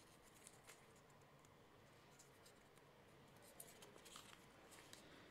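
Faint crinkling and rustling of a small folded paper slip being unfolded by hand, a few soft crackles scattered over near-silent room tone.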